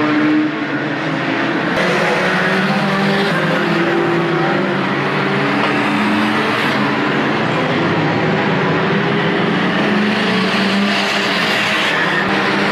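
Several banger racing cars' engines running hard together as a pack races round the track: a steady, loud din of overlapping engine notes that keep shifting in pitch.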